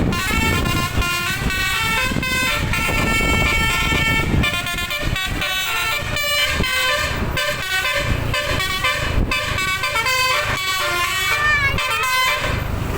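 Bus telolet air horn, a set of trumpet horns, playing a quick tune of short stepped notes over the bus engine running.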